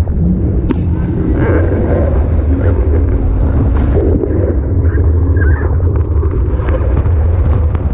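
A boat motor running steadily, with wind rumbling on the camera microphone.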